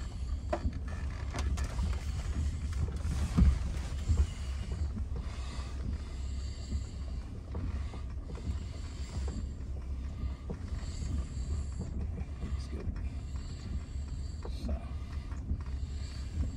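Cabin noise of a 2021 Range Rover Velar crawling slowly over a rough off-road track: a steady low rumble with scattered knocks and creaks from the body and suspension, the loudest knock about three and a half seconds in.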